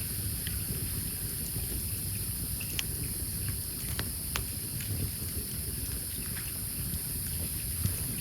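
Wood fire crackling, with a few sharp pops, the clearest near the middle, over a low steady rumble. Crickets chirp in a steady high drone behind it.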